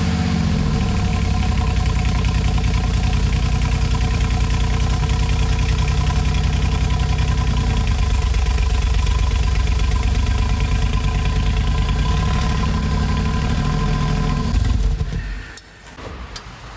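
Mercedes-AMG G63's twin-turbo V8 idling steadily, then going quiet about fifteen seconds in.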